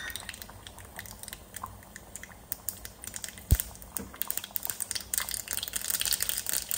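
Mustard seeds popping and crackling in hot coconut oil in a small pan as a tempering (oggarane) begins. The pops grow denser toward the end. A single dull knock sounds about three and a half seconds in.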